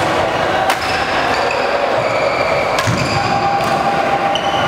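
Badminton rackets hitting shuttlecocks about three times, sharp clicks during a feeding drill, with short squeaks of court shoes on the wooden floor between the hits.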